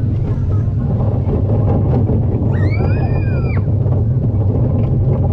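Zierer junior roller coaster train running along its steel track with a steady low rumble. Midway there is a high-pitched squeal that lasts about a second, rising, holding and then falling away.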